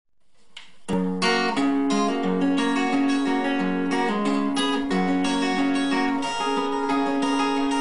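Acoustic guitar music with strummed chords. It comes in sharply about a second in, after a brief swell from silence.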